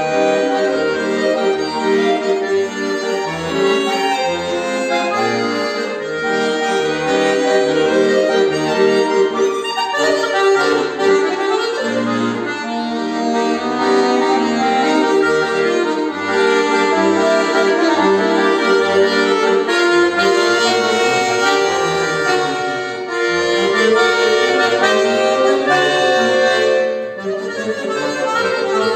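Solo bayan (chromatic button accordion) playing a classical piece: a sustained melody over held chords, with short, separate bass notes underneath.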